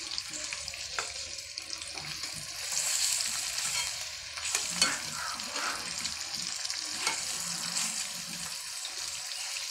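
Marinated chicken pieces sizzling in shallow mustard oil in a frying pan, with a metal spatula scraping and knocking against the pan as the pieces are turned over; a few sharp clicks stand out over the steady sizzle.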